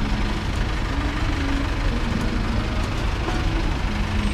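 Steady low rumble of a nearby vehicle engine idling with street traffic.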